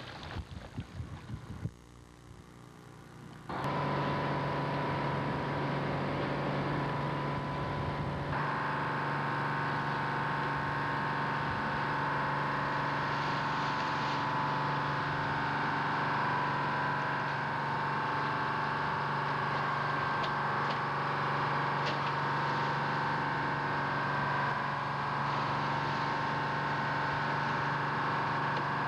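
Fishing boat's engine running steadily, coming in suddenly a few seconds in. A higher whine joins about eight seconds in.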